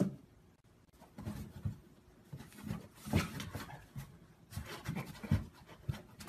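A cat batting at a paper strip poking up through a hole in a cardboard box: irregular soft taps and scrapes of its paws on the cardboard and paper.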